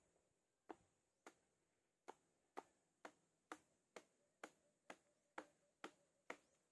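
A faint, regular series of sharp knocks, about two a second, a dozen in all.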